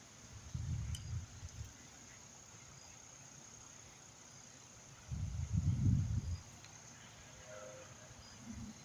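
Crickets chirping in a steady high chorus, with two low, dull rumbles, one about half a second in and another around five seconds in, each lasting about a second.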